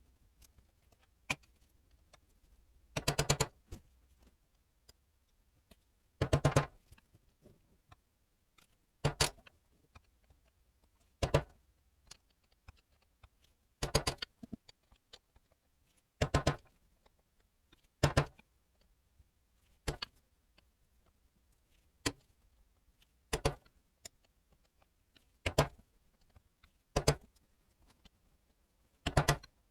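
Short bursts of metallic clinking and rattling, about a dozen of them every two seconds or so, as tools and small engine parts are handled.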